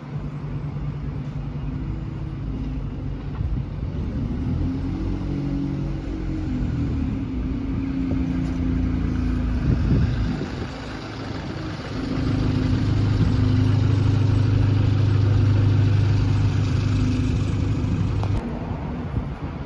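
Single-deck diesel bus pulling away and passing close, its engine pitch rising and falling as it moves off, then a steady engine drone as it accelerates away. The sound cuts off sharply near the end.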